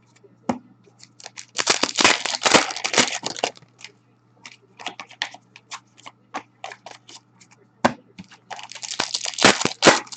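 Hockey card packs being torn open and the cards handled. There are two spells of crinkly tearing, the first about a second and a half in and lasting about two seconds, the second near the end, with light clicks and rustles between.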